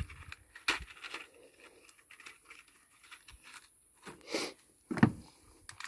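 Blank cartridges being picked from a plastic box and pressed into the magazine of an Ekol Aras Magnum blank pistol: faint, scattered small clicks and rustling, with a couple of louder bumps about four and five seconds in.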